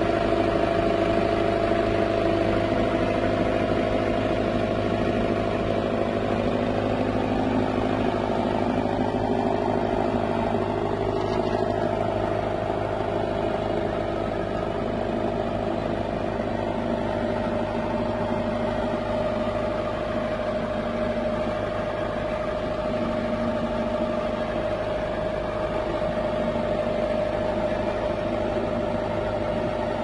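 Aveling-Barford tandem road roller's diesel engine running steadily at an even speed, with a steady high note over the engine sound.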